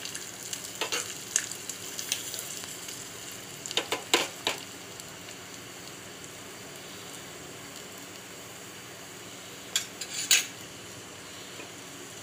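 Chopped garlic and green chillies sizzling steadily in hot oil in a small pan as a tempering, the garlic frying to golden brown. A spoon clinks and scrapes against the pan a few times, most sharply about four seconds in and again near ten seconds.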